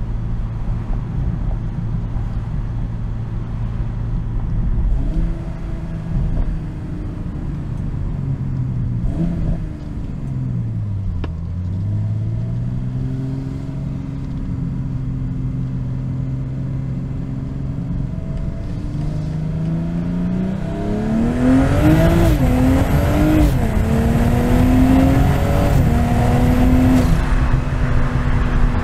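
BMW M240i's 3.0 L turbocharged inline-six engine and exhaust while driving: a steady cruising note that drops away about ten seconds in as the car slows, picks up again, then rises hard from about twenty seconds in under acceleration, with two quick upshifts of the 8-speed automatic, before settling into a louder, steady run.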